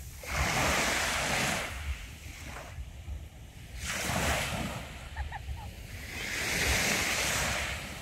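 Small sea waves breaking and washing up the beach: three swells of surf, each rising and fading over about a second, a couple of seconds apart. A low wind rumble on the microphone runs underneath.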